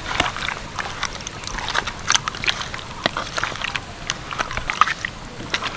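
Hands squishing raw chicken pieces through a thick yogurt-and-spice marinade in a bowl: irregular wet squelches and clicks.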